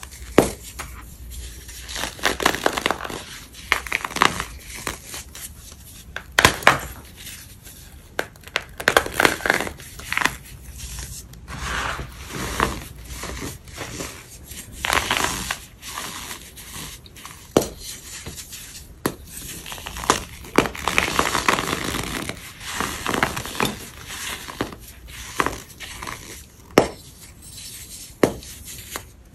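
Blocks of pressed white powder crunching and crumbling: irregular gritty crunches one after another, with sharp cracks now and then as pieces snap.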